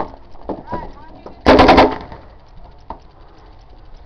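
Paintball marker, a Smart Parts Impulse, firing a rapid string of about five shots in under half a second, about a second and a half in. A few single sharp pops come before and after it.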